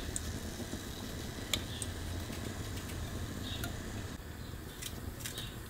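A metal spoon scraping and tapping fat into a non-stick cooking pot, with one sharp click about one and a half seconds in and scattered light ticks, over a steady low hum.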